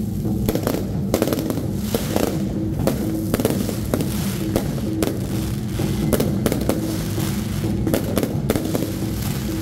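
Aerial fireworks launching and bursting overhead: an irregular string of sharp cracks and bangs, about two or three a second, over a steady rumble.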